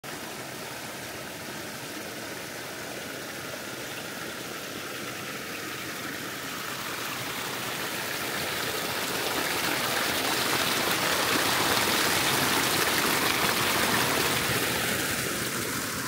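A forest stream running steadily, growing louder through the middle and easing off near the end.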